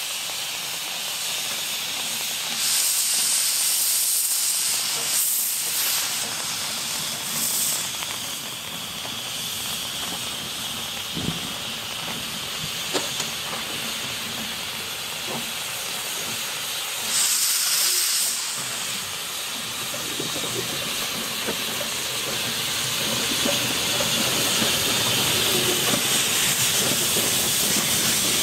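Small narrow-gauge steam locomotive hissing steam from its cylinder drain cocks as it moves slowly. The hiss surges louder about three seconds in, briefly near eight seconds, and again around seventeen seconds, with a few sharp metallic clicks in between.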